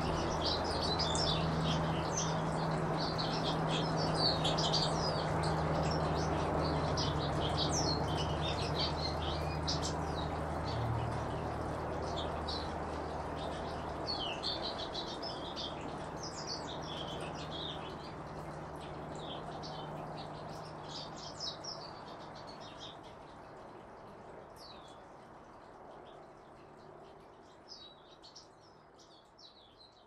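Small finches chirping and twittering in many short, high calls, busiest in the first half and thinning out toward the end. A steady low hum sits underneath, and the whole sound fades down gradually.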